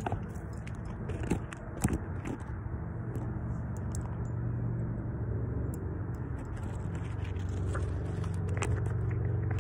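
2009 BMW M3's 4.0-litre V8 idling just after a cold start, heard at the tailpipes of its full Remus exhaust as a steady low drone that grows a little louder after about five seconds. A few sharp knocks of the phone being handled come in the first two seconds.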